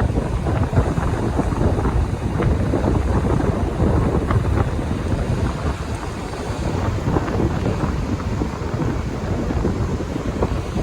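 Strong wind blowing across the microphone: a steady low rushing noise that swells and eases with the gusts.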